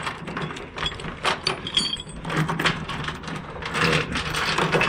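Metal tie-down hardware being handled, giving scattered clinks and rattles with a brief ringing clink about two seconds in, over a steady low hum.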